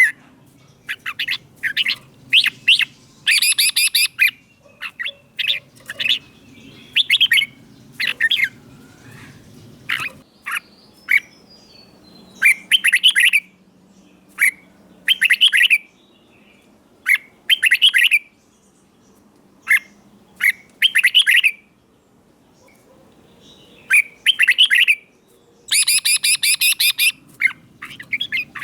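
Red-whiskered bulbul singing short, loud, quick phrases every second or two, with brief pauses between them, over a faint low hum.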